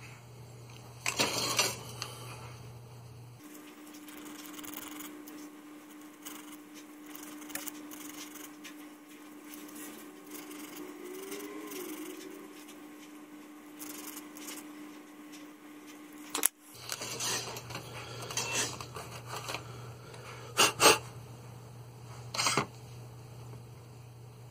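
Sparse small-tool handling sounds on a plastic model kit: a short rasp about a second in, faint scrapes and ticks, a sharp click near the middle, then a run of scrapes and sharp taps in the last third, over a faint steady hum. The rasps fit a nail file worked against a plastic part.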